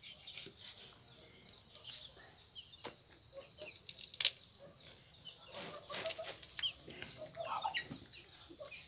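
Chickens clucking in the background, with scattered small clicks and scrapes of hands and a knife working on raw chicken pieces; the sharpest click comes about four seconds in.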